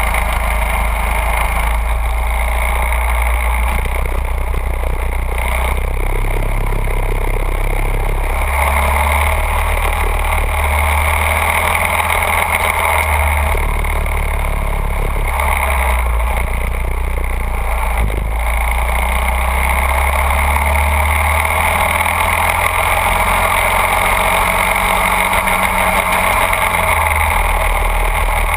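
Go-kart engine running steadily at speed with wind rush, its low note shifting a few times but never clearly revving up or down.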